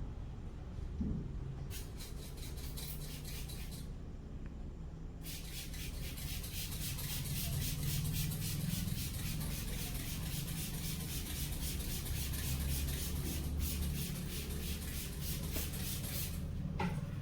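Head massage: fast, rhythmic rubbing strokes, several a second, on the hair and scalp. They start about two seconds in, pause briefly about four seconds in, then run on until just before the end.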